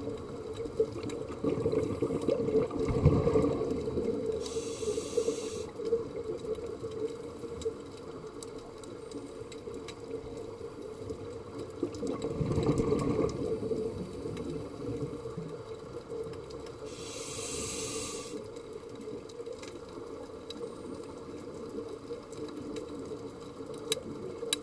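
Scuba diver breathing underwater through a regulator: two short hisses of inhaled air through the demand valve, and two gurgling rumbles of exhaled bubbles, over a steady hum.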